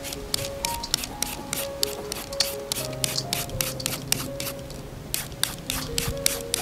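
Young green mango being shredded with a hand julienne shredder: quick repeated scraping strokes, about three a second, as thin strips fall into a steel bowl. Background music plays underneath.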